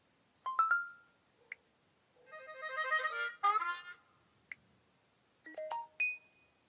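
LG K10 smartphone playing its preloaded short alert tones. A brief electronic chime of a few notes is followed, about two seconds in, by a quick run of many notes, then another short chime near the end.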